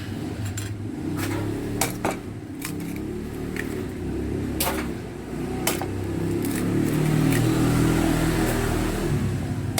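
A low engine rumble, building to its loudest about seven or eight seconds in and easing off near the end, with sharp knocks of eggs being cracked against a bowl.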